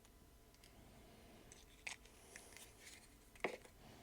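Near silence, broken by a few faint, short clicks and taps as small plastic parts and a glue bottle are handled on a workbench.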